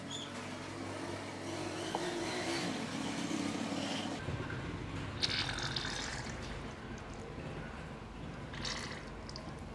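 Oil running out of a refrigerator compressor's pipe stub in a thin stream into a container, pushed out by air blown into the compressor through a hose. A couple of brief splashy sounds come about five and nine seconds in.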